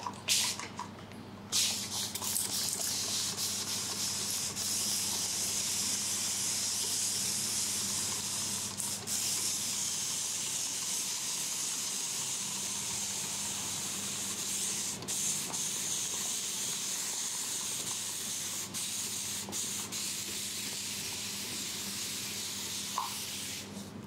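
Continuous-mist spray bottle hissing out a fine mist over and over, after a couple of sharp clicks at the start. The hiss is steady and high, with a few brief breaks, and stops just before the end.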